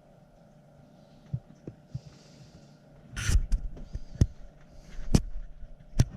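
Steady low hum with a few light knocks, then four loud, sharp knocks in the second half.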